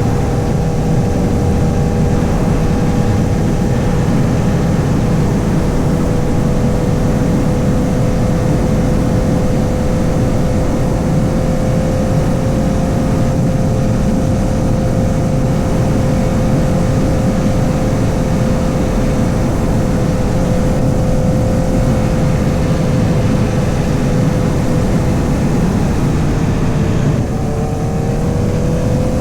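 2008 Honda CBR1000RR Fireblade's 999cc inline-four running at a steady engine speed while riding, over a heavy low rush of wind and road noise. Near the end the engine note dips briefly and then climbs again.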